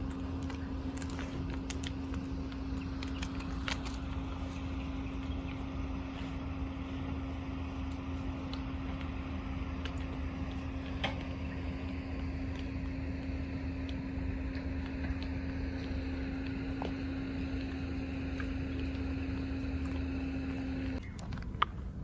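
A steady mechanical hum with a constant mid-pitched tone over a low rumble, cutting off suddenly about a second before the end. A few faint clicks sound in the first few seconds.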